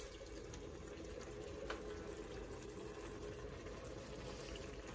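Faint, steady sizzling from a hot pot of fried onions as canned chopped tomatoes are emptied into it from the tin, with one light tap about a second and a half in.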